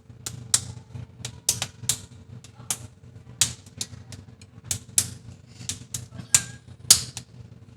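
A run of sharp clicks and taps, about twenty at irregular spacing, from hard objects knocking or being handled, over a faint steady hum.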